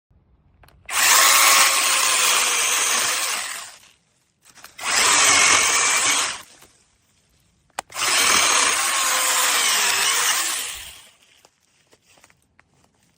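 Battery-powered SEESII mini chainsaw with a brushless motor, run in three bursts of a few seconds each, with a sharp click between the second and third.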